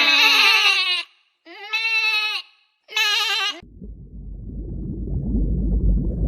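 Three wavering, bleating calls from a farm animal, about a second apart, followed by a low, rough, noisy sound that grows louder toward the end.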